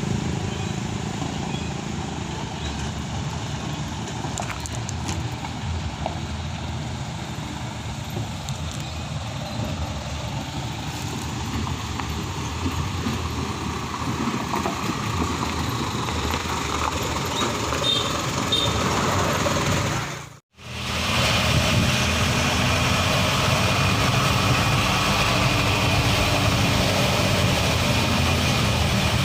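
Heavy diesel engine running steadily. The sound drops out for a moment about two-thirds of the way in, then the engine carries on a little louder.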